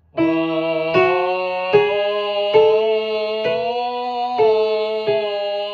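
A singer vocalising a scale on held notes, stepping up and then back down with a new note about every second, while a piano strikes each note as it changes, as a vocal exercise in a singing lesson.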